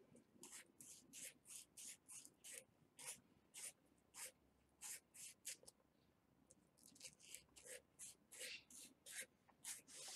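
Faint scratchy rubbing inside a small pipe fitting, cleaned by hand, in short strokes about three a second. There is a brief pause about six seconds in.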